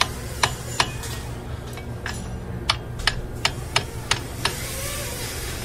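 About ten sharp metallic clicks, irregularly spaced, as a screwdriver tip knocks and picks at the steel ball bearing and its cage in a Kubota M5111 tractor's wheel hub during bearing work. A steady low hum runs underneath.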